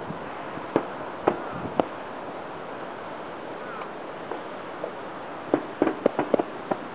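Distant aerial firework shells bursting: three single bangs in the first two seconds, then a quick cluster of about six bangs near the end, over a steady hiss.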